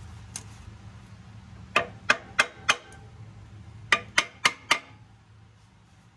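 Small metal hammer tapping a steel clutch pressure plate to seat it on the flywheel's dowel pins: two runs of four quick, sharp metallic taps, each with a short ring.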